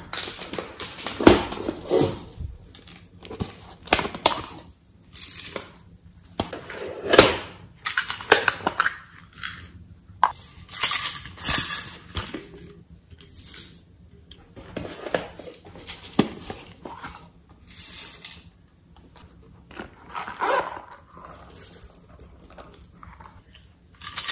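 Hands squeezing and handling soft plastic piping bottles of clay: irregular crinkling, creaking and clicking plastic noises, coming and going in short bursts.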